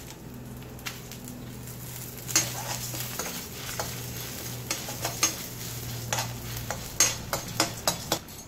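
A metal spatula stirs urad dal and dried red chillies as they roast in an iron kadai. The scrapes and clicks are irregular and start about two seconds in, over a light sizzle from the little oil in the pan.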